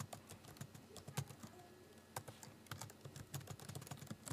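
Typing on a computer keyboard: a run of faint, quick, irregularly spaced key clicks as an email address is typed in.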